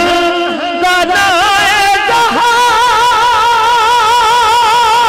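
A male naat singer's voice sings a run of quick melodic turns, then from about two seconds in holds one long high note with a steady vibrato.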